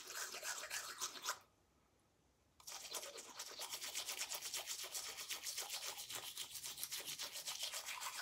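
Manual toothbrush scrubbing teeth with a non-foaming charcoal toothpaste: quick back-and-forth bristle strokes, several a second, stopping for about a second just after the start, then resuming.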